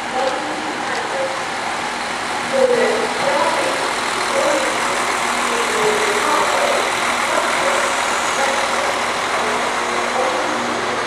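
ScotRail Class 170 Turbostar diesel multiple unit running past along the platform, its underfloor diesel engines giving a steady hum over wheel-on-rail noise. Voices are faint underneath.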